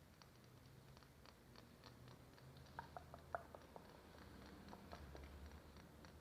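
Faint, irregular small clicks and taps close to the microphone, from light tapping and handling of objects, with a few sharper taps about three seconds in.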